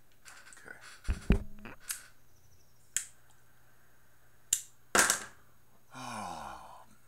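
Handling sounds of a glass bong and a lighter being set up on a desk: low thumps and knocks about a second in, then a few single sharp clicks, and a short rustle with a falling pitch near the end.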